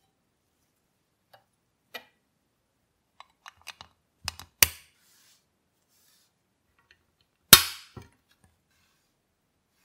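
Light clicks of parts being handled, then two sharp snaps a few seconds apart, the second the loudest, as a white bumper piece is pressed into place on the body of a 1960s Tonka Ser-Vi-Car toy.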